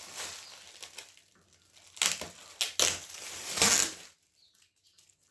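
Takeaway burger packaging being opened by hand: crinkling and rustling, with a few louder crackling bursts in the middle, then it goes quiet near the end.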